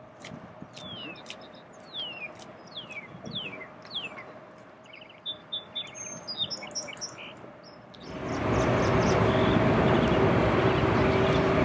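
Small birds chirping, with a run of short falling whistle calls. About eight seconds in, a loud steady roar with a low hum cuts in abruptly and drowns them out.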